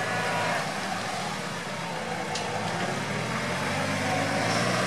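Lifted UAZ off-roader on large mud tyres wading slowly through deep muddy water, its engine running steadily.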